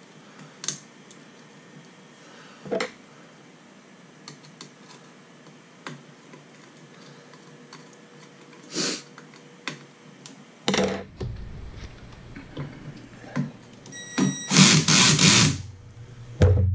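Small scattered clicks and taps of wires and parts being handled, with louder knocking and a burst of rustling in the last few seconds.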